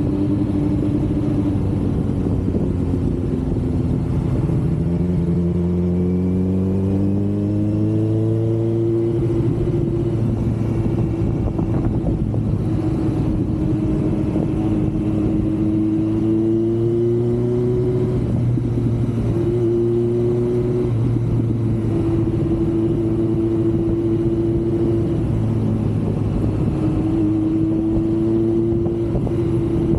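Kawasaki Z900's inline-four engine pulling as the bike accelerates, its pitch rising over several seconds, then running at a roughly steady pitch with small rises and dips. Wind rumble on the microphone.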